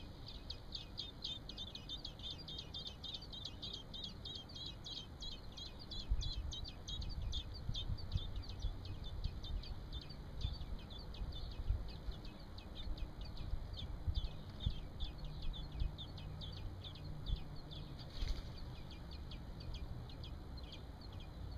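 Nestling robins in the nest begging with a rapid stream of short, high cheeping chirps, about ten a second. From about six seconds in there are also low rumbles and thumps.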